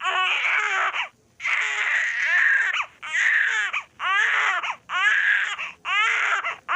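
Baby crying hard: six wailing cries of about a second each, one after another, broken by short catches of breath.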